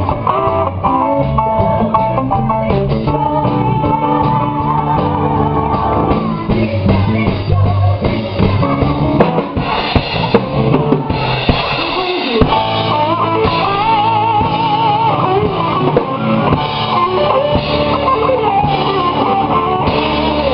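Live musical-theatre pit band playing a rock number, with drum kit, guitar and keyboard.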